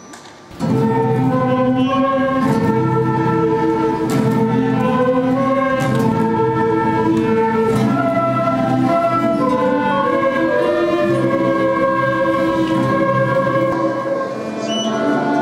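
A children's school ensemble of cellos, guitars and flutes with a chamber orchestra strikes up together about half a second in, playing long held notes in full chords.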